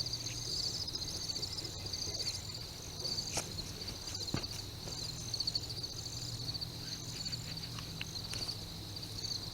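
Night insects, crickets or katydids, chirping in a steady, fast-pulsing chorus, with a couple of faint knocks near the middle.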